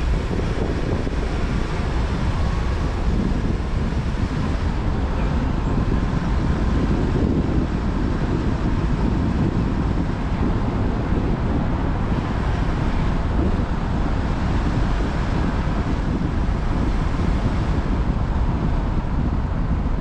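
Car driving, heard inside the cabin: a steady rumble of engine and road noise with wind buffeting, unchanging throughout.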